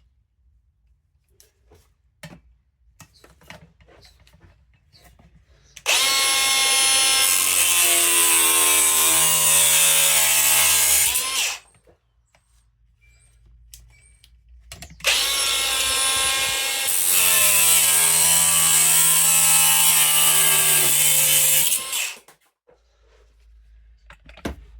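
Electric angle grinder run twice under load, for about five seconds and then about seven, its whine dropping in pitch as it bites into the metal, with a loud hiss from the work.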